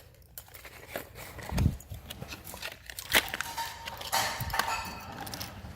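Toy packaging and small die-cast cars being handled: plastic rustling and scattered clicks, with a dull thump about one and a half seconds in.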